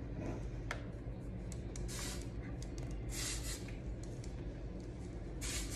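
A hair spray bottle spritzing the hair three times: short hisses about 2 s, 3 s and 5.5 s in, the middle one the longest. A steady low hum runs underneath.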